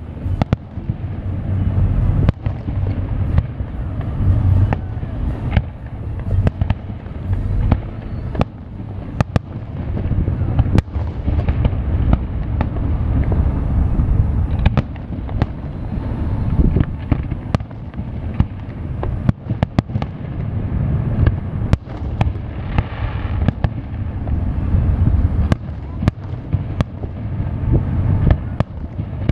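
Aerial firework shells bursting one after another in a fireworks display: many sharp bangs in quick, irregular succession over a continuous low rumble.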